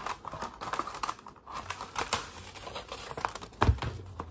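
Paper rustling and crinkling as a card-mailer envelope is opened and the folded letters inside are handled, with scattered small clicks. A dull thump about three and a half seconds in is the loudest sound.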